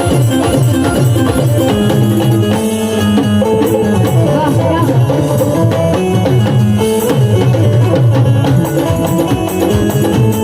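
Instrumental devotional bhajan music: hand drums keeping a steady rhythm under sustained melody notes, with no singing.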